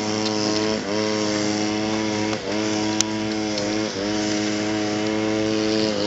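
A steady motor-like hum holding one constant pitch, with brief dips in pitch about three times.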